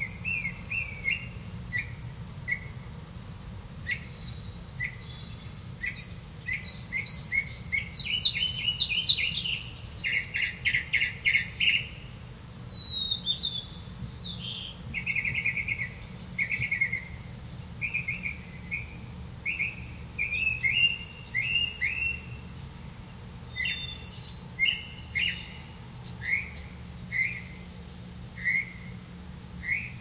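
Black bulbul nestlings begging: a long series of short, high chirps, with faster rattling runs near the middle and the loudest calls about a quarter of the way in. A steady low hum runs underneath.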